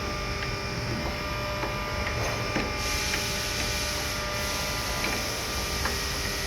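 Steady mechanical hum and hiss, with a few faint clicks and taps from hand work.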